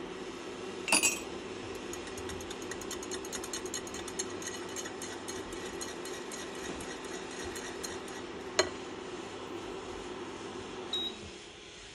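Steady hum of an electric hob under a pot, with a metal spoon clinking against the pot about a second in and a quick run of light ticks while the frothy mixture is stirred with a spatula; another single clink a few seconds later. Near the end a short beep sounds and the hum winds down, as the hob is switched off.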